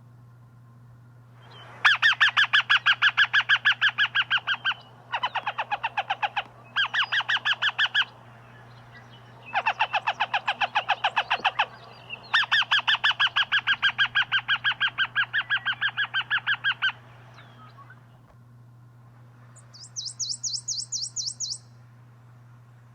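A bird calling in loud, rapid rattling trills of repeated notes, about seven a second, in five bouts lasting one to five seconds each. Near the end comes a shorter, higher-pitched trill.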